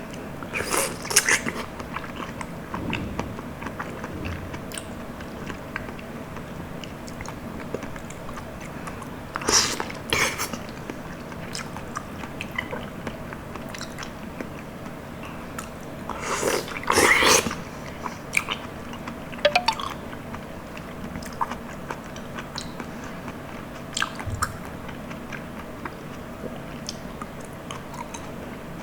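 Close-miked eating of soft, juicy tropical fruit: wet, sticky chewing and biting, louder about a second in, around ten seconds in and around seventeen seconds in, with small wet mouth clicks between over a faint steady hum.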